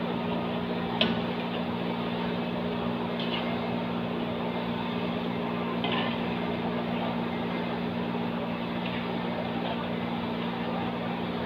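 Ragi nachos deep-frying in a large kadai of hot oil: a steady sizzle over a low steady hum, with a few short clinks of the wire skimmer against the pan.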